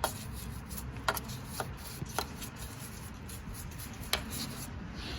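A few sharp, separate light clicks and some rubbing: metal parts being handled and poked at inside an open lathe gear case.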